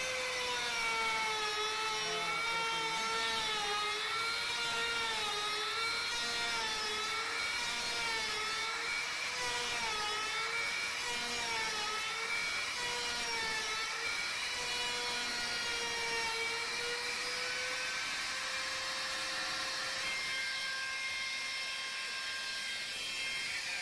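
Handheld electric trim router running as it cuts a hinge mortise into the edge of a wooden door. Its high whine wavers up and down in pitch as it is pushed back and forth through the wood, then holds a steady pitch near the end once it is lifted clear of the cut.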